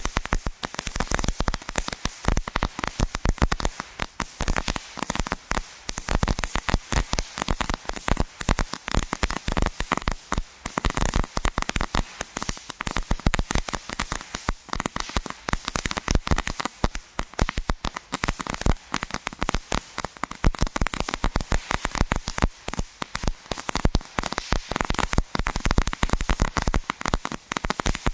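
Two Jorge JC08 crackling fountains burning on the ground, giving off a dense, continuous crackle of rapid small pops.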